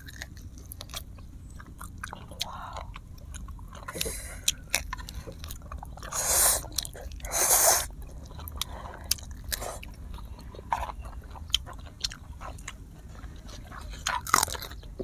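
Close-miked eating: chewing and biting with many wet mouth clicks, and two loud slurps of instant noodles about six and seven and a half seconds in. Near the end comes a crunchy bite into a fresh cucumber.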